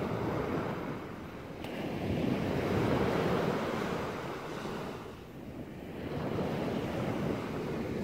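Small sea waves breaking and washing up a sandy shore, the surf swelling and fading twice.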